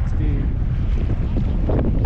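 Strong wind buffeting the microphone with a steady low rumble, over water sloshing around a kayak on choppy water.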